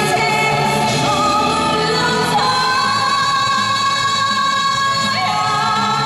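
Live Korean pop song sung by a female vocalist, backed by electric violin and keytar over a full band track. In the second half the melody holds one long note with vibrato.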